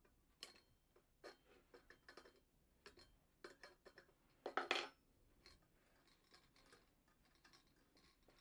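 Steel open-end wrench clicking and clinking against the brass generator nut of a Coleman 508A gasoline stove as the nut is snugged down a small turn. A string of short, sharp metal clicks, with the loudest cluster a little past halfway.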